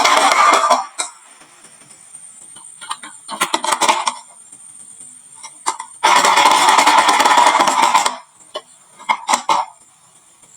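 Marbles rolling and clattering down a wooden marble-run slope in two loud rushes, one fading out under a second in and another from about six to eight seconds in, with scattered single clicks and clacks of marbles between.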